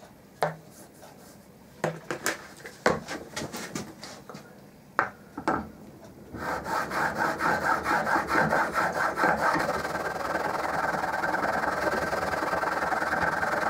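A few clicks and knocks as the chisel in its wheeled honing guide is set on the wetted plate. Then, from about six seconds in, the steel chisel bevel is rubbed quickly back and forth on the 600-grit side of a diamond sharpening plate: a steady, even, rhythmic scraping.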